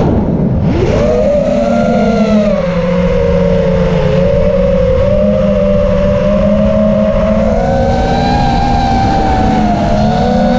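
FPV racing quadcopter's brushless motors and propellers whining, heard through the onboard camera's microphone. The pitch dives sharply right at the start as the throttle is cut for a flip, climbs back within about a second, then rises and falls with the throttle. Rough wind rush runs underneath.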